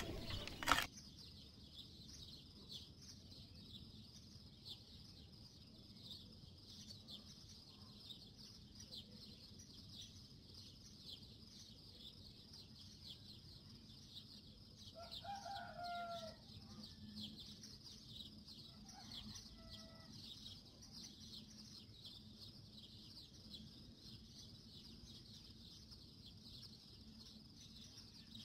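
Faint rural background: a steady high-pitched chirring throughout, with a chicken calling once, for about a second, roughly halfway through. A sharp knock comes just under a second in.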